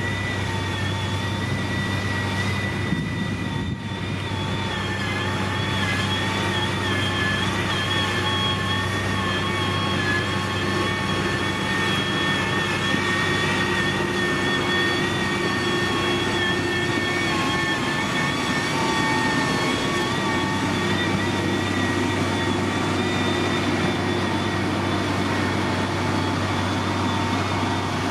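Heavy diesel road-construction machine running steadily, with an engine hum and a high, slightly wavering whine over it.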